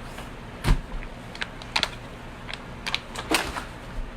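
Kitchen handling noises while sandwiches are put together: a sharp knock about two-thirds of a second in, then a string of irregular clicks and taps.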